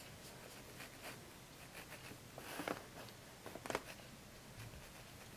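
Faint soft brushing of a small paintbrush drawing white paint across paper, a few short strokes, the clearest about two and a half and three and a half seconds in.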